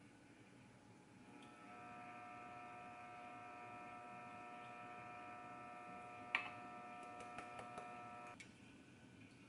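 Faint, steady electric hum of a small motor or appliance, several even tones together. It starts about a second and a half in and cuts off suddenly near the end. A sharp click about six seconds in and a few lighter clicks follow while it runs.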